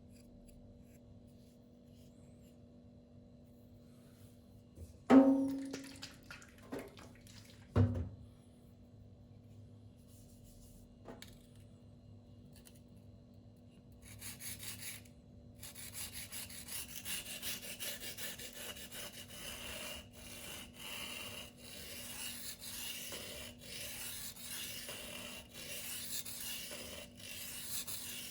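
Spyderco Tenacious 8Cr13MoV blade being stroked across a silicon carbide whetstone: a rasping scrape in repeated passes with short breaks, starting about halfway through. Before that comes a sharp knock with a brief ring, then two smaller knocks.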